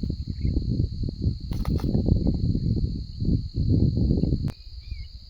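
Steady high chirring of crickets, under irregular low rumbling and rustling that stops suddenly about four and a half seconds in.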